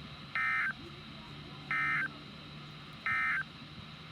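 NOAA Weather Radio SAME end-of-message data bursts: three short, identical warbling digital tone bursts about a second apart, marking the end of the required weekly test broadcast. They come through a radio receiver over a faint steady hum and hiss.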